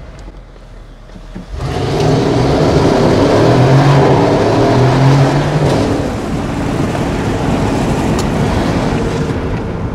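Mercedes ML63 AMG's 5.5-litre biturbo V8 under hard acceleration, heard from inside the cabin. The engine note comes in suddenly about a second and a half in, stays at its loudest for about four seconds, then eases to a steadier, quieter run.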